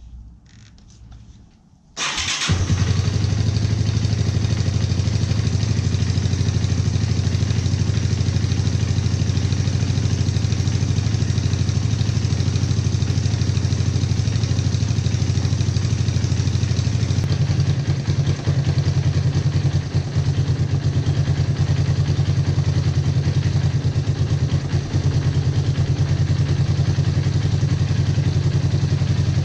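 Yamaha YTM225 three-wheeler's single-cylinder four-stroke engine starts about two seconds in and then idles steadily. It still has the tick that a quarter-turn adjustment of the tensioner has not cured, which the owner puts down to worn rocker arm bushings.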